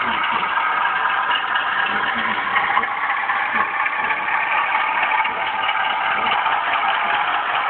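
Steady diesel engine sound of a BR Class 33, played back by a Digitrax SoundBug DCC sound decoder in an OO gauge Hornby model locomotive, mixed with the rolling noise of model freight wagons on the track.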